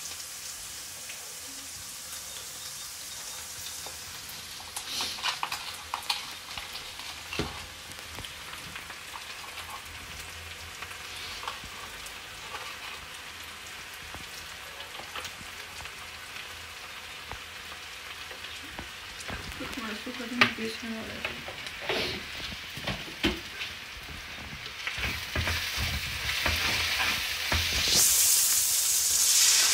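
Chopped onion and tomato sizzling in oil in a nonstick frying pan, with occasional knocks and scrapes of a wooden spatula. The sizzle and stirring grow louder near the end.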